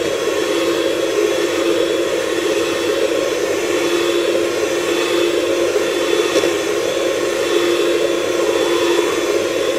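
Handheld electric mixer running at a steady speed, its beaters whipping cream in a stainless steel bowl; a loud, even whir that holds one pitch.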